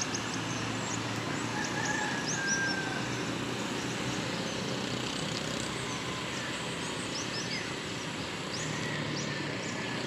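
Outdoor town ambience heard from a height: a steady hum of distant traffic, with small birds giving many brief, high chirps throughout.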